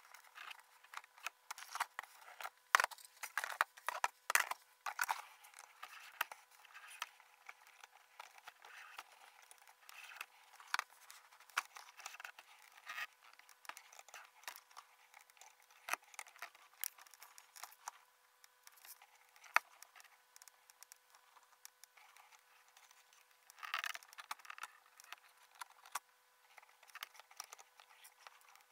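Laparoscopic instruments clicking, tapping and scraping as they handle a suture, played at five times speed, so the sounds come as a fast, high chatter over a faint steady hum. The clicks are thickest in the first few seconds and again near the end.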